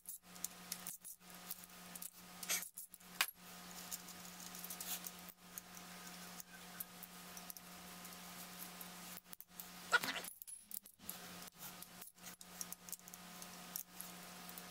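Socket wrench on an extension working the camshaft retainer plate bolts of an LS V8: irregular light metallic clicks and clinks of the tool against the bolts and block, one sharper clink about ten seconds in. A steady low hum runs underneath.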